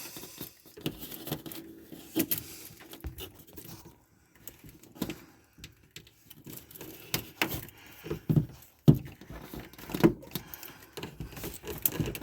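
Hands working electrical wires, a crimp connector and crimping pliers: scattered small clicks, taps and rustles, with the sharpest knocks near the end.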